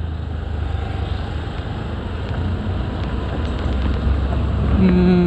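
Steady low wind rumble on the rider's camera microphone over the running noise of a Honda Dio scooter and its tyres on the road, while riding in traffic.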